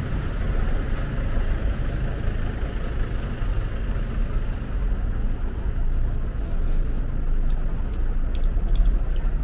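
Steady city street noise, with the low rumble of passing road traffic.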